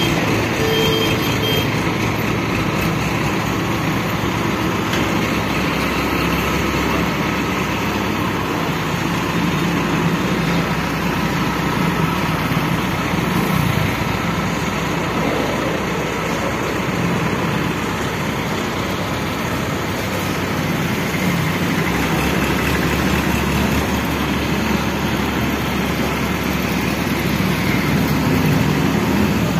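Heavy engine running steadily, as from a truck-mounted crane, under a haze of street noise; its low hum shifts a little about seven and again about twenty-two seconds in.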